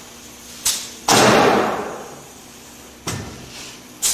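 Pneumatic nail gun firing nails to tack a plywood sheet to a wooden frame. One loud shot comes about a second in and rings out for about a second. Lighter clacks come just before it and twice more near the end.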